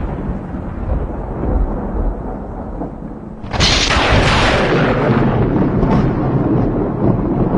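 Thunder sound effect: a rolling rumble dying away, then a sharp thunderclap about three and a half seconds in that breaks into a long, loud rumble.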